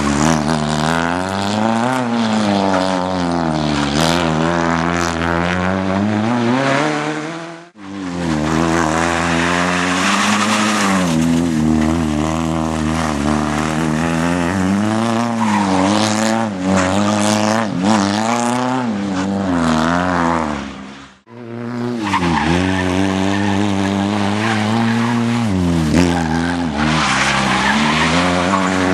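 Opel Corsa rally car's engine at racing speed, revving up and dropping back over and over as it changes gear. The sound breaks off sharply twice, about 8 and 21 seconds in.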